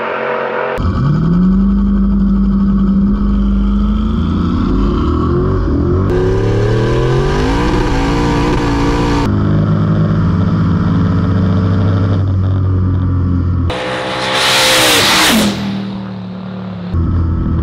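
Turbocharged LS V8 Holden Commodore drag cars at full throttle on a run, heard partly from inside a car, with the engine note climbing as it accelerates. About 14 seconds in, a car goes close past at speed with a loud rush and a sharply falling pitch. The sound changes abruptly several times.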